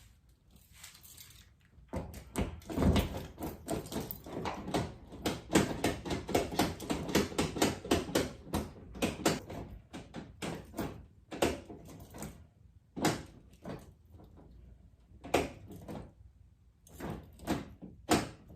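A 1995 Nissan D21's manual door lock being worked with the key after lubrication: a quick run of clicking and clunking from the lock mechanism for several seconds, then single clicks every second or two. The lock is still jamming.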